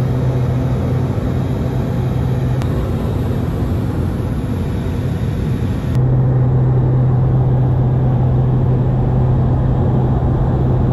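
Cabin noise of a Dornier 228's twin Honeywell TPE331 turboprops: a steady low propeller hum over a dense engine and airflow rush. The hum drops away about two and a half seconds in and comes back about six seconds in.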